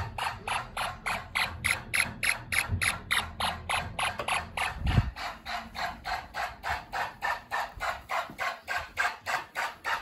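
Fire alarm horns of a homemade Snap Circuits fire alarm system sounding in alarm: a rapid, even pulsing of about four beeps a second. A single low thump about halfway through.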